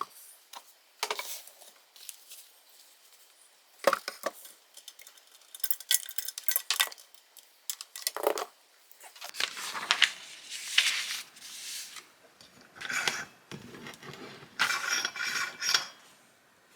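Kitchen equipment being handled on a counter: irregular clinks and knocks of metal and hard parts, with a few longer scraping noises.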